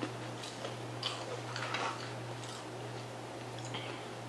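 Chewing of crispy fried catfish nuggets and crinkle fries: scattered small crunches and mouth clicks, a cluster of them about a second and a half in, over a steady low hum.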